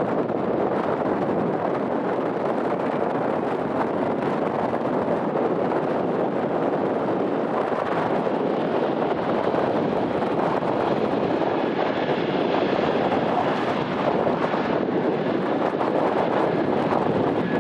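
Airbus A320neo jet engines at takeoff power, a steady roar mixed with wind buffeting the microphone. A faint whine comes in about two-thirds of the way through.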